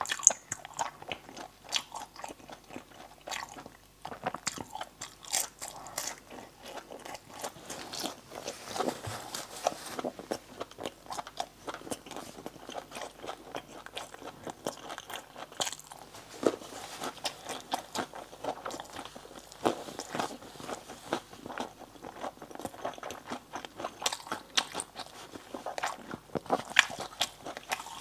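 Person biting and chewing crunchy fried food close to a clip-on microphone: a steady run of sharp crunches with chewing between them.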